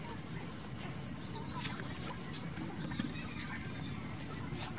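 Quiet outdoor background with scattered short, high-pitched animal chirps and squeaks.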